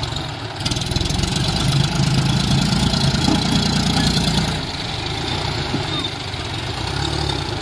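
John Deere tractor diesel engines working under load to pull a trolley-laden tractor out of soft sand. The engine note picks up about half a second in, holds hard for several seconds, then eases off to a lower steady run.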